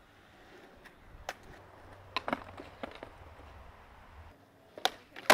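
Skateboard rolling with a low rumble, broken by several sharp clacks of the board, the loudest near the end.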